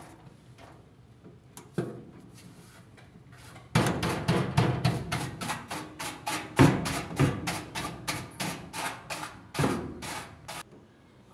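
A rapid run of sharp knocks and clicks, about three or four a second, starts about four seconds in and stops shortly before the end. It comes from hand work on a Whirlpool dryer's pulley as the retaining clip on its shaft is worked off so the pulley can be greased.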